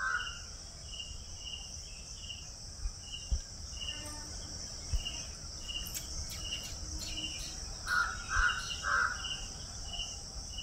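Steady high-pitched chorus of insects such as crickets, with a short chirp repeating about twice a second, and three short louder calls a little after the two-thirds mark.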